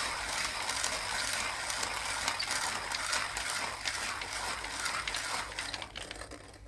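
Hand coffee grinder with conical burrs being cranked, crunching coffee beans: a dense, rapid crackle of small cracks and scrapes that grows quieter near the end.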